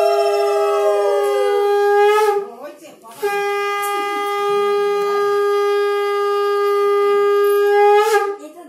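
Conch shell (shankha) blown in two long steady blasts, the first ending about two seconds in and the second starting about a second later and held until near the end. At the start a second, higher tone slides down in pitch and fades out.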